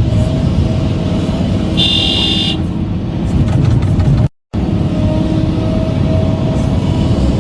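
A vehicle engine running steadily, with a short high-pitched horn beep about two seconds in. The sound drops out for a moment a little past the middle.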